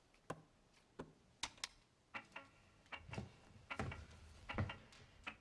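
Faint clicks and light taps from a Panasonic hi-fi stereo being switched on and turned up. Soft low knocks come roughly once a second in the second half.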